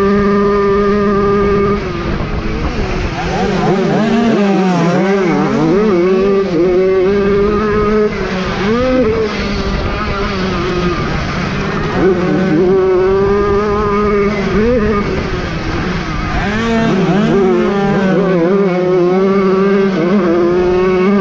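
Small single-cylinder two-stroke engine of a Jawa 50 moped, run hard at high revs. Its pitch holds high for a couple of seconds, then dips and climbs again and again as the throttle is eased and reopened. It holds high again near the end.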